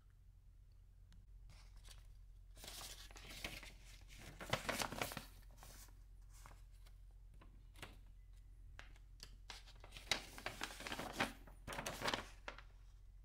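Paper instruction booklet rustling and crinkling as its pages are handled and turned, in two spells of rustling with sharp crackles: a few seconds in and again near the end.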